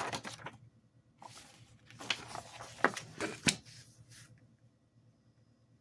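Paper and small kit pieces being handled: rustling with a few sharp clicks and taps during the first three and a half seconds, then quiet room tone.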